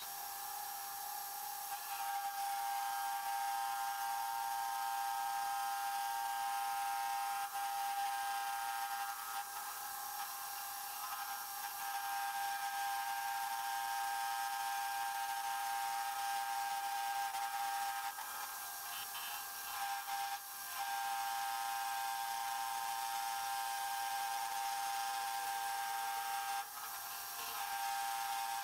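Homemade metal lathe turning a steel shaft while the cutting tool takes a pass: a steady high whine over a hiss, breaking off briefly twice, about two-thirds through and near the end.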